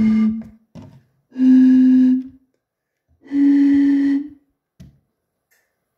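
Three plastic Coca-Cola bottles holding different amounts of water, blown across the mouth one after another. They give three breathy, flute-like notes, each about a second long and each a step higher in pitch than the one before.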